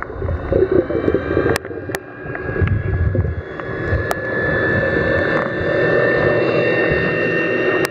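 Underwater sound of a motorboat's engine and propeller: a steady whine slowly rising in pitch over rumbling, churning water noise, with a few sharp clicks.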